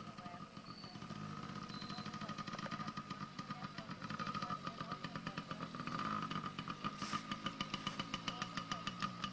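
A child's small dirt bike engine running at low throttle with a rapid, even pulsing note. It grows louder through the middle as the bike comes closer.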